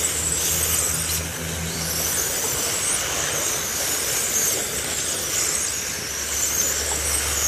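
Several electric dirt-modified RC cars with 17.5-turn brushless motors running laps, their motors and gears making a steady high-pitched whine that wavers as the cars circle.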